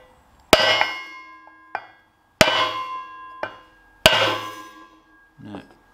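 Mallet blows on a block of wood held over a steel pivot bush, driving it further into the Ferguson TED20 front axle frame. There are three hard knocks a little under two seconds apart, each followed by a metallic ring from the frame, with lighter taps in between.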